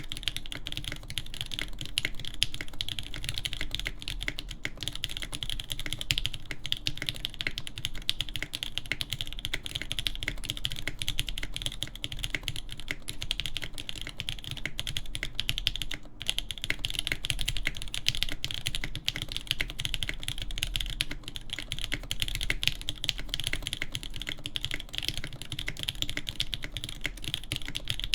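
Continuous typing on a custom mechanical keyboard with lubed Durock L7 linear switches, a POM plate, GMK keycaps and a polycarbonate case. The keystrokes come in a dense stream, with a brief pause about halfway through.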